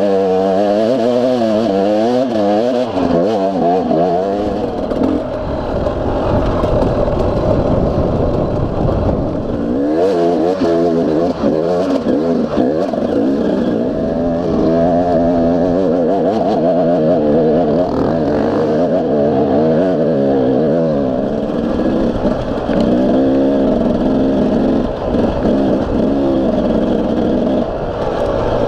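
Enduro dirt-bike engine being ridden over rough trail, its pitch rising and falling constantly as the throttle opens and closes.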